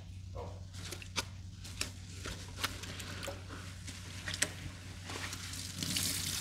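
Cleaning sponges soaked with a paste of Comet cleanser and dish soap being squeezed and rinsed: wet squelching with sharp crackles and clicks, then a steady rush of water from about six seconds in.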